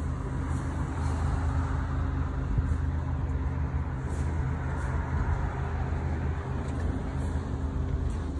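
Motor cruiser's engine running steadily under way: a continuous low drone.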